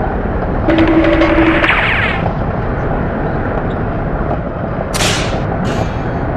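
Steady rumble of a roller coaster ride, with an added cartoon sound effect about a second in: a held two-note tone with a wavering glide over it. Two short hissing bursts come near the end.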